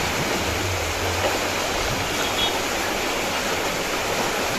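Steady rush of river floodwater pouring through a sluice gate into a canal.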